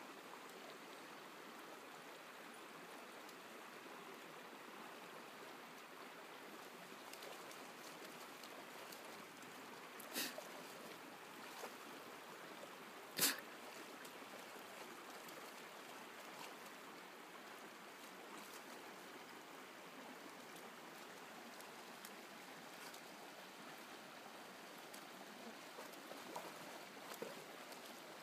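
Faint steady rush of a shallow river running, broken by two brief sharp knocks, the louder one about halfway through.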